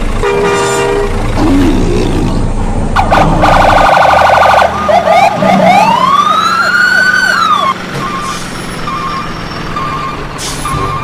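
Vehicle sound effects: a horn honks briefly at the start. A siren follows, first as a rapid, loud yelp and then as a wail that rises and falls, and ends about two thirds of the way in. Short, evenly spaced beeps come after it.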